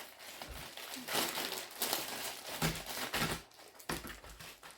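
Plastic packaging crinkling and rustling in irregular bursts as it is handled, with a few soft knocks.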